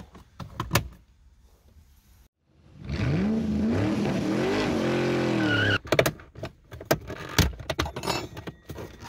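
Sharp plastic clicks and knocks from the dash-top speaker cover of a first-generation Kia Soul being pried loose by hand. About three seconds in, a loud, pitched drone rises, wavers and holds for nearly three seconds, then stops abruptly.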